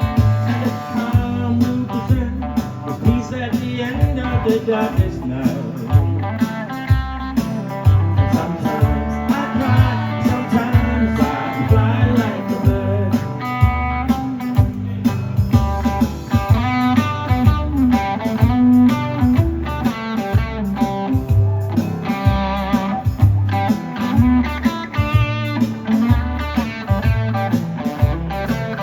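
Live rockabilly band playing an instrumental break: electric guitar lead over bass and drums with a steady beat.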